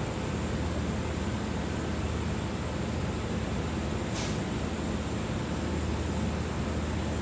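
Welding arc on stainless steel pipe burning steadily during a weaving root pass, a constant hiss over a low hum, with a brief sharper hiss about four seconds in.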